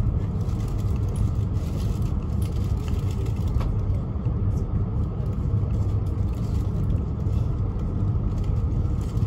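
Running noise of a Tohoku Shinkansen Hayabusa train heard inside the passenger cabin: a steady low rumble.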